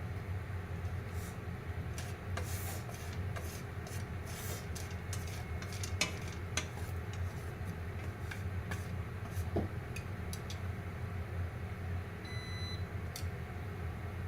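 Microwave oven running with a steady hum while popcorn pops inside in irregular sharp clicks. A single short beep sounds near the end.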